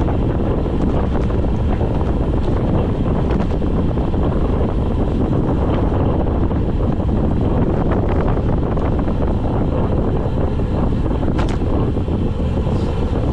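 Steady, heavy wind rush over the microphone of a camera on a road bike on a descent, with a few faint clicks and one sharper click about eleven seconds in.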